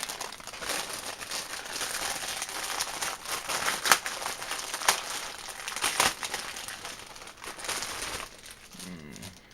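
Packaging crinkling and crackling as a plush toy is unwrapped, with a few sharper crackles about halfway through.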